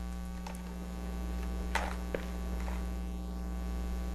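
Steady electrical mains hum, with a few faint short ticks and soft handling noises over it.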